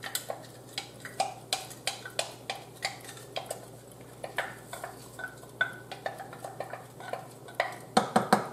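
A spoon tapping and scraping against a measuring cup and the rim of a pot as rice is worked out of the cup into boiling water: a string of light, irregular clicks and knocks, about two or three a second, with a few louder knocks near the end.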